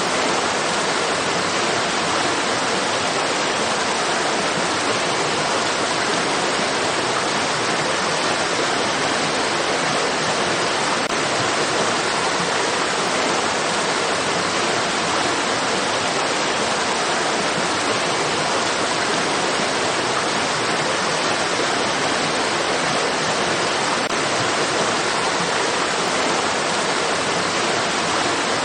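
Stream water rushing, a steady, even hiss with no change or breaks.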